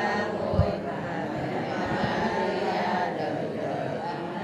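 A group of people reciting a prayer aloud in unison in Vietnamese, their act of consecration read from booklets, with a low thump about half a second in.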